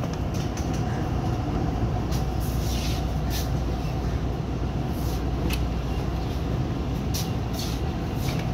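Passenger coach of a moving express train, heard from its open doorway: a steady low running rumble with sharp clicks and clacks at irregular moments.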